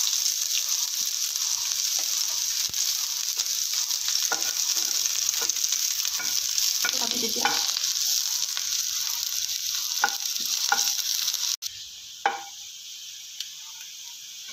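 Sliced onions sizzling in a little hot oil in a nonstick frying pan, stirred and scraped across the pan with a slotted wooden spatula. The sizzle drops away suddenly about three-quarters of the way through, leaving a fainter hiss and a few scrapes.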